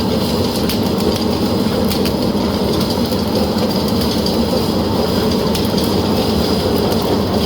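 Reinforcement-cage welding machine for concrete poles running: a steady mechanical rumble and clatter with scattered sharp clicks.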